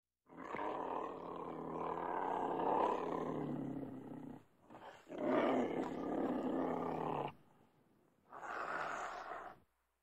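Cougar growling and snarling in three drawn-out growls separated by short pauses. The first lasts about four seconds, the second about two, and the third about a second.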